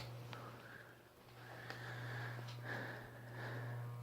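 A 2006 Hampton Bay Grayton II ceiling fan running on low speed: a steady motor hum under an airy swish that swells and fades about once a second. It hums and vibrates even with all its rubber noise-cancelling bushings fitted.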